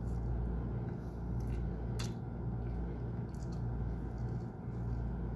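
A person gnawing and sucking meat off a chicken bone, with a few small sharp clicks and crunches, the sharpest about two seconds in, over a steady low room hum.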